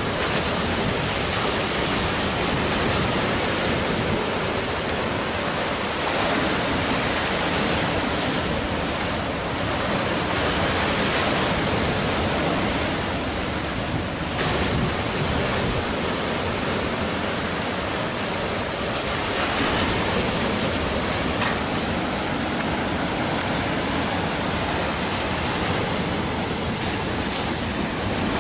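Sea surf washing over shoreline boulders: a steady, dense rush of churning water that swells and eases slightly every few seconds.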